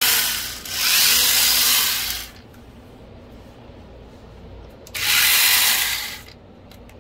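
Roxon 21 V cordless electric chainsaw run in short trigger bursts with the chain spinning free: a brief burst at the start, a longer one of about a second and a half, and another of just over a second about five seconds in.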